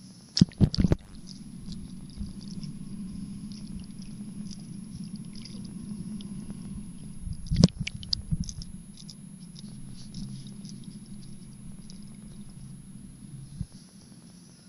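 Muffled knocks and taps on a submerged action camera's housing: a quick cluster of three or four about half a second in, one loud knock about halfway through followed by a few lighter clicks, over a steady low hum.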